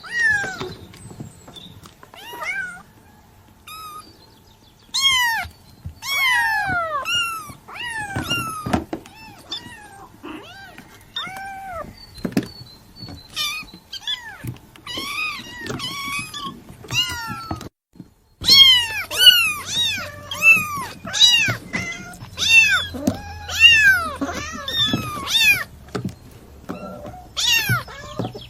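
Kitten meowing over and over in short, high calls that fall in pitch. After a brief break about two-thirds of the way through, the calls come louder and closer together.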